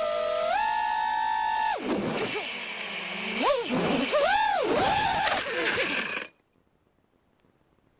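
Small 200-size FPV racing quadcopter's brushless motors and propellers whining, the pitch rising and falling in waves with throttle changes and a quick rising sweep in the middle. The sound cuts off abruptly about six seconds in.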